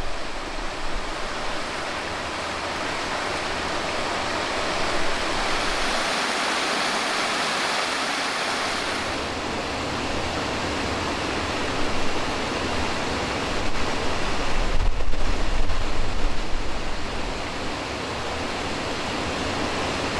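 Steady rushing of flowing river water. A louder low rumble comes in about fifteen seconds in.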